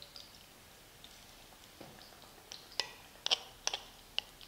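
Faint crackling from hot oil in a kadai as besan-battered cauliflower florets are dropped in to deep-fry, with a handful of sharp pops clustered in the second half.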